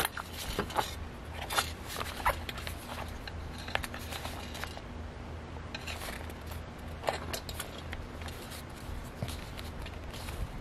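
Stiff paper and card pages of a handmade junk journal rustling and tapping as the book is handled and its pages turned, in a string of irregular short clicks and rustles.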